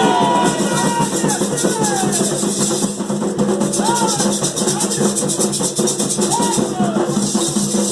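Candomblé ceremonial music: a rattle shaken fast and without a break, over drums and voices.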